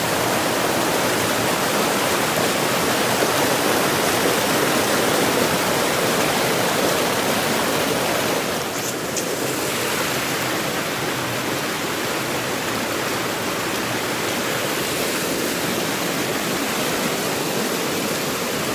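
River water rushing and splashing over rocks in small cascades of white water, a steady loud rush that eases slightly about halfway through.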